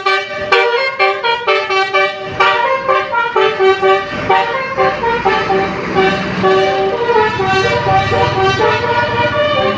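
Basuri telolet multi-tone bus horn playing a tune. Quick stepped notes come first, then longer held notes, and a low rumble joins underneath about halfway through.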